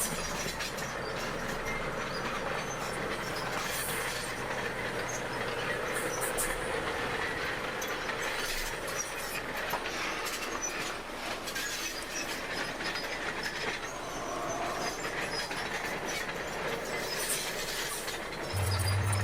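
Crawler bulldozer at work: its steel tracks squealing and clanking under the running machine, with scattered clicks. Near the end a steady low hum comes in.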